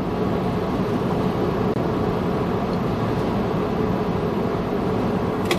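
Steady low rumble inside a car's cabin with the engine running.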